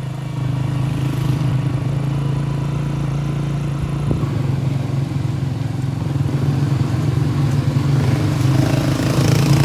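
A vehicle's engine running steadily as it drives along, getting a little louder towards the end.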